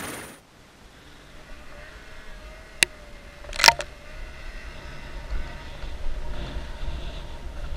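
Snowmobile running a short way ahead while towing a skier on a rope, under a low rumble of wind and skis on snow that grows in the second half. Two sharp knocks about three and three-and-a-half seconds in.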